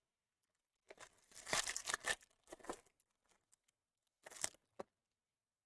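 A baseball card pack wrapper being torn open and crinkled, in three bursts of tearing: a longer one about a second in, a short one just after, and another near the end.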